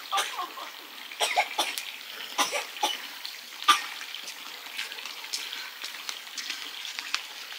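Handling noises: scattered short knocks and clinks over a faint steady hiss, the sharpest about three and a half seconds in.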